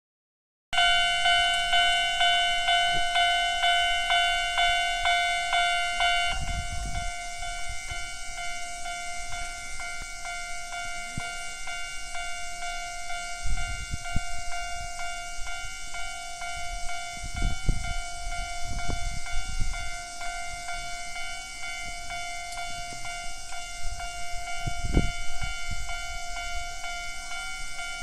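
A Japanese railway level-crossing warning alarm of the older standard tone, ringing in quick even strokes a little over twice a second. It drops to a lower level after about six seconds and keeps ringing. A few low rumbles sound now and then underneath.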